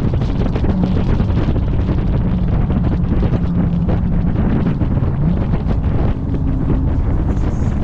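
Wind buffeting an exterior camera microphone over the low exhaust drone of a Dodge Charger Scat Pack's 392 HEMI V8 cruising, with a steady engine note that holds for several seconds.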